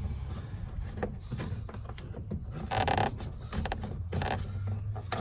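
A tool prying at plastic door-panel clips: scattered small clicks and knocks of plastic, with a longer scrape about three seconds in.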